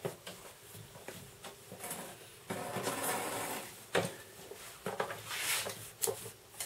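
Rubbing and rustling from a foam brush working wet epoxy into fiberglass cloth, with a few light knocks. A longer rustle comes about two and a half seconds in.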